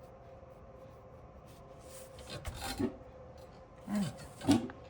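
Rubbing and scraping on paper, in two short bouts, the second louder, near the end.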